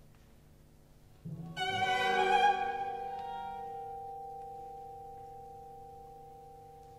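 Symphony orchestra playing contemporary classical music. A quiet held chord is joined about a second in by a low entry, then a sudden loud, bright accented chord that slowly fades away over the following seconds, leaving a few sustained tones.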